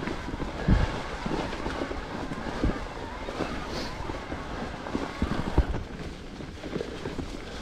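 Cube 29er mountain bike ridden over rough trail: wind on the microphone and a steady rattle and rumble of tyres and frame, with hard thumps from bumps about a second in, near three seconds and after five seconds.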